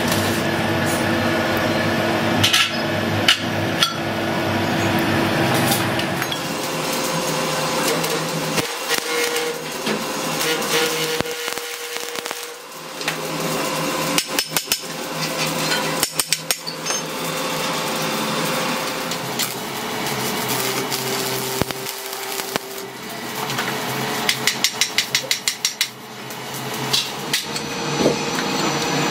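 Steel parts struck with a hammer in several quick runs of sharp blows, with single knocks between. A steady machine hum runs underneath, heavier in the first few seconds.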